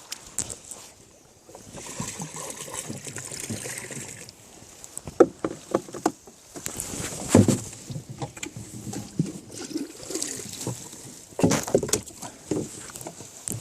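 Water sloshing and splashing, with scattered knocks and clatters, the loudest about halfway through and again near the end.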